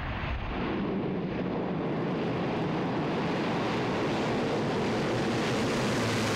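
C-130J Hercules' four Rolls-Royce AE 2100 turboprop engines and propellers running at power, a steady dense roar with a low hum underneath that grows brighter and slightly louder from about two seconds in.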